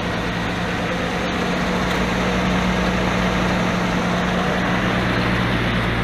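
1989 Jeep Cherokee XJ engine idling steadily, an even low hum that holds unchanged.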